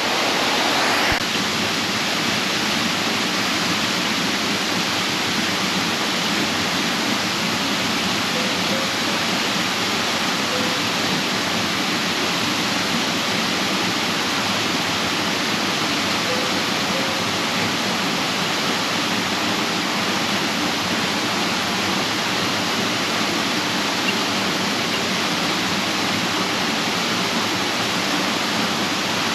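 Waterfall pouring steadily into its pool: a continuous, even rush of falling water.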